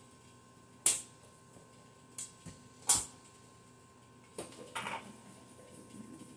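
A few sharp, short clicks and knocks over faint room tone. The two loudest come about a second in and about two seconds later, with softer ones after.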